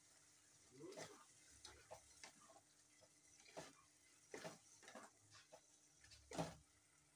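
Plastic spatula stirring a thick stew in a metal saucepan, knocking and scraping against the pot in faint, irregular strokes, the loudest one about six seconds in.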